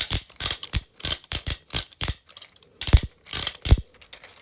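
The loudest wheel on a large 3D-printed 12-in-1 fidget toy being turned, making a run of sharp, uneven ratchet clicks, about three a second.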